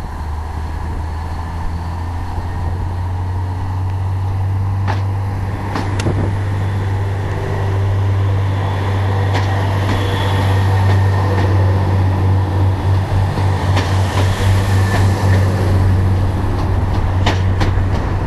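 NI Railways C3K diesel multiple unit pulling away and passing close by, its engine a steady low drone that grows louder. In the second half the drone takes on a pulsing beat, and a few sharp clicks come near the end.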